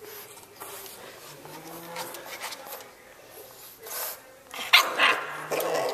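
English bulldog puppy giving a few short barks, loudest near the end.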